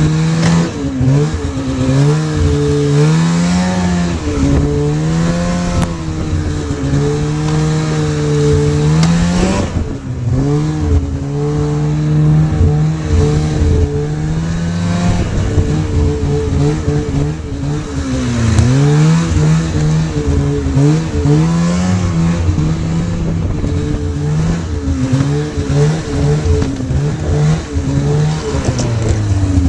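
Polaris snowmobile engine running under way, its pitch dipping and climbing again every few seconds as the throttle is eased and reopened, over a steady rushing noise from the machine in motion.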